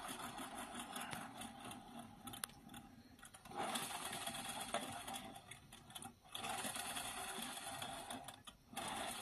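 Rotor of a beverage-can model jet engine spinning on its needle pivot: a fast, steady mechanical whirr. It breaks off briefly three times: about a third of the way in, about two-thirds in, and near the end.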